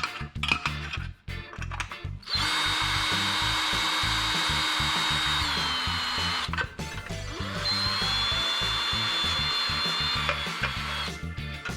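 Power drill running twice, several seconds each time, drilling holes through the engine valley tray. Its steady whine drops slightly in pitch near the end of the first run, with a pause of about a second between runs. Background music with a steady beat plays underneath.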